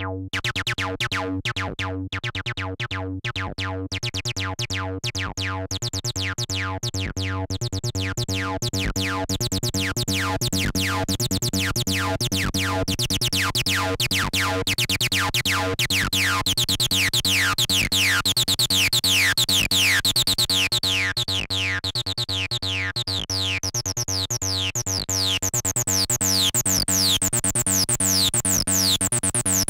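Behringer TD-3 analog bass line synthesizer playing a fast step-sequenced acid bass pattern through its built-in distortion. The resonant filter squelches on every note. The cutoff is swept open through the middle, closes briefly, then opens again near the end.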